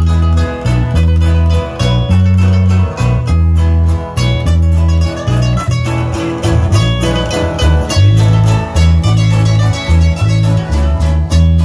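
Live Nicaraguan norteña folk music, played as an instrumental on button accordion and acoustic guitars over a deep bass line that steps about twice a second.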